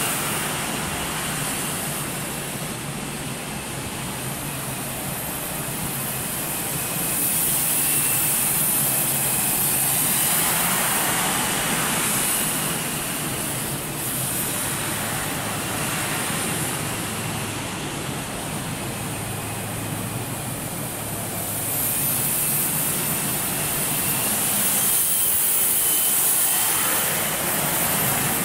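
Micro gas turbine of an indoor model jet running in flight: a steady rushing noise with a thin high whine that drifts slightly in pitch. It swells louder twice, about a third of the way in and again near the end, as the plane passes closer.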